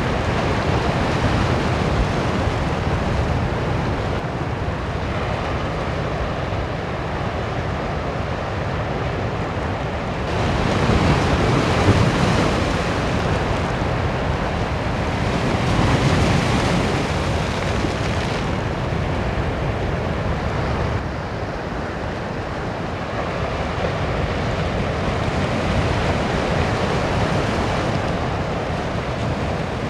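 Rough sea surf breaking against rocks, a continuous wash of waves with louder surges about a third of the way in and again a little past halfway.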